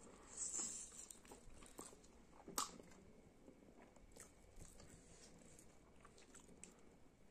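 Faint eating sounds: soft chewing and small wet mouth clicks, with one sharper click about two and a half seconds in.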